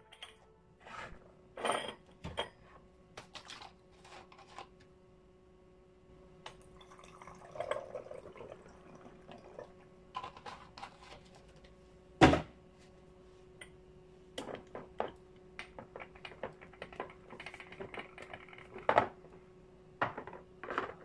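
Glass condiment dispenser bottles and their metal pour-spout caps being handled: scattered clicks, clinks and knocks, the loudest a sharp knock about twelve seconds in. A faint steady hum runs underneath.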